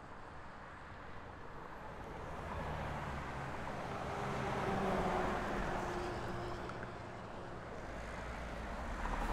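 A motor vehicle passing by: a broad engine and tyre noise that swells to its loudest about halfway through and then fades away.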